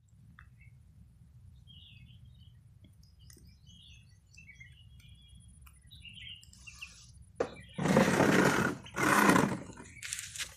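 Young chickens peeping, short faint chirps scattered through the first seven seconds; then two loud rushing bursts of noise, each under a second, about eight and nine seconds in.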